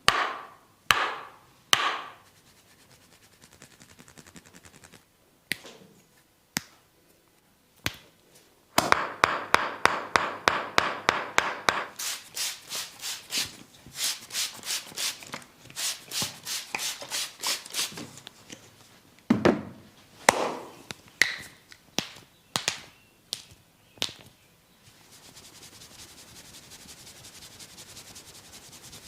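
Massage strokes on a person's head and body: a few scattered taps, then a long fast run of even rubbing strokes. A few more sharp taps follow, and then steady, fainter rubbing near the end.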